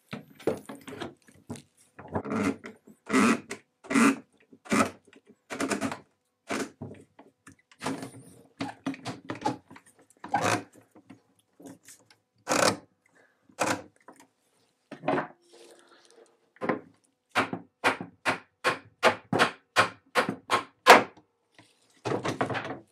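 One-handed bar clamp set as a spreader, its trigger pumped to force a wooden chair joint apart: a series of separate knocks and clicks, then a quicker even run of sharp clicks, about two or three a second, in the last few seconds.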